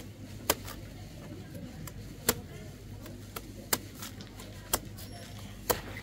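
Knife blade chopping into the stalk of a bunch of green bananas to cut off the hands: five sharp chops, roughly a second apart, over a low steady hum.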